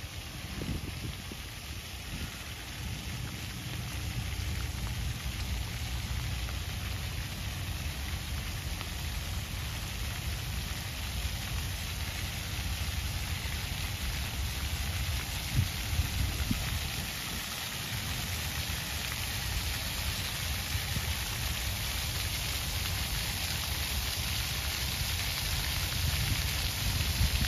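Steady outdoor hiss that grows slightly stronger in the second half, with low rumbling wind noise on the microphone.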